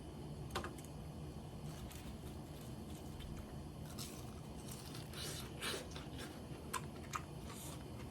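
Scattered light clicks and short crisp rustles of tableware and food being handled at a meal, over a steady low hum. The crackly rustles bunch up about five to six seconds in.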